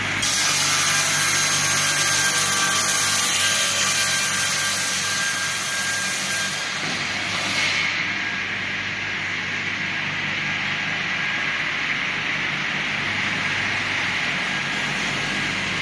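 Circular sawmill blade cutting through a log, a loud high-pitched cutting noise that ends about seven seconds in. After that the blade and the machine's motor keep running steadily with nothing in the cut.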